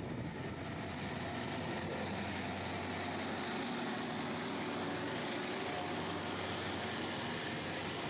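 Alsthom diesel-electric locomotive pulling a train out of a station, its engine running steadily as it passes, followed by passenger coaches rolling by on the rails.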